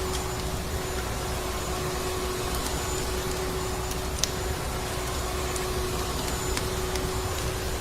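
Vacuum cleaner running with a steady drone and a constant hum, overlaid with the scattered sharp pops of a crackling wood fire, one louder pop about four seconds in.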